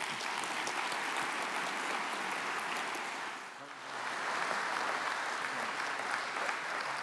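Audience applauding; the clapping dips briefly a little past halfway, then swells again.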